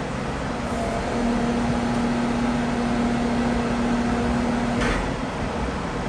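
Heavy construction machinery running: a steady mechanical drone, with a held hum from about a second in until nearly five seconds, ending with a short hiss.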